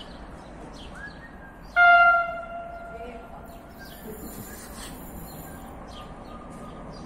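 A train horn gives one short, loud blast about two seconds in, with its single pitched note dying away, while small birds chirp.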